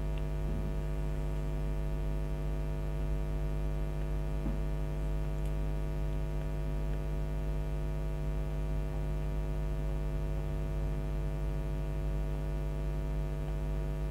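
Steady electrical mains hum with a ladder of evenly spaced overtones, unchanging throughout, with a few faint clicks.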